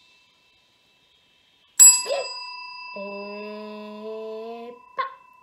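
A chrome desk bell is struck once about two seconds in and rings on, then is struck again briefly near the end. Between the strikes a woman's voice gives one long held sound that rises slightly.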